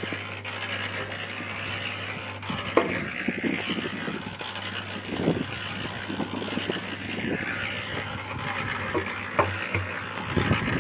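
A motor running steadily with a low hum, with a few sharp knocks and clicks over it.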